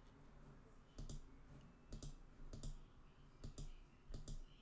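Faint computer mouse clicks: a handful of short, sharp clicks at irregular spacing, several coming in quick pairs, over a faint low hum.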